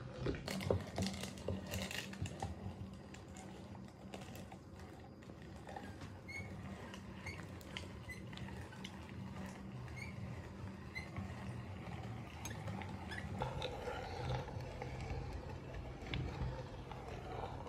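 Hand-cranked metal meat grinder being turned, forcing soft ice cream through its cutting plate: wet squelching and clicking, with a short squeak about once a second as the crank goes round.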